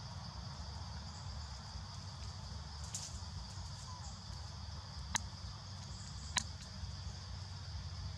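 Forest ambience: a steady high insect drone over a low rumble, with three sharp clicks, the loudest a little over six seconds in.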